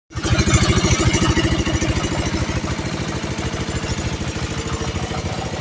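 Small Yanmar single-cylinder diesel engine running at idle with a steady, rapid beat. The engine is low on power from a leaking valve, which the owner puts down to loss of compression.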